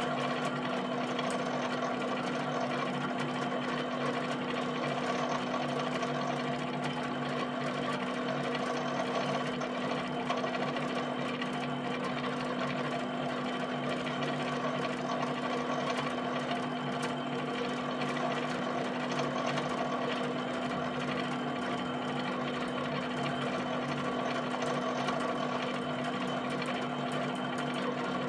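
HP 7585B pen plotter drawing rows of dots. Its pen and drive motors run with a steady hum under a fast, even mechanical chatter.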